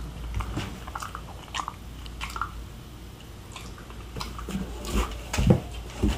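English mastiff puppy chewing and biting, with scattered sharp taps and a few heavier thumps about five seconds in.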